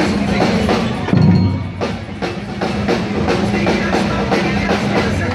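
Marching drum group playing in a steady rhythm, sharp strokes about two to three a second with a heavier low drum thump about a second in, over a held low tone.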